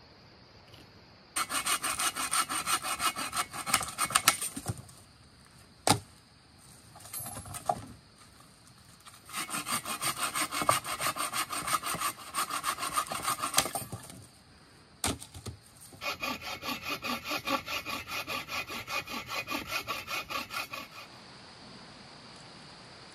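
Hand saw cutting through a wooden branch in three bouts of quick back-and-forth strokes, with a sharp crack between the bouts twice.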